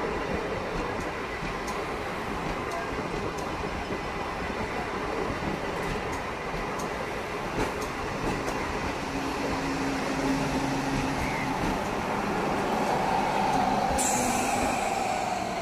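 Indian Railways passenger coaches rolling past on the adjacent track: a steady rumble of steel wheels on rail with occasional faint clicks. A high hiss cuts in abruptly near the end.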